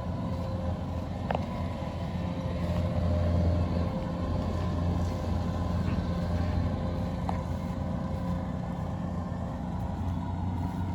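Kubota DC-93 combine harvester running steadily while harvesting rice: a low diesel drone with steady higher whining tones over it. There are two faint brief clicks, one early and one past the middle.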